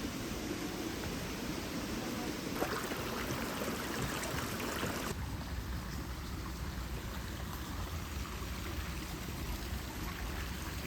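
Steady rush of running water, like a small stream, its tone changing abruptly about two and a half seconds in and again about five seconds in.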